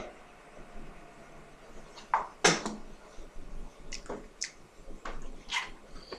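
A person eating croquetas with lime: a few short, sharp mouth clicks and chewing crunches, scattered irregularly with quiet between them.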